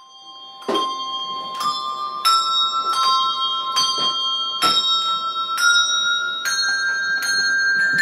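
Bells rung one after another, each strike a different note that keeps ringing under the next, at a steady pace of a little more than one stroke a second; the notes climb step by step through the sequence.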